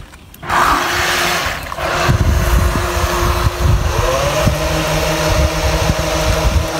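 Small remote-controlled net-laying boat's motor starting up about half a second in and running steadily as it speeds off across the water towing a fishing net, its whine rising slightly in pitch around four seconds in, with water spraying from its wake. Wind rumbles on the microphone.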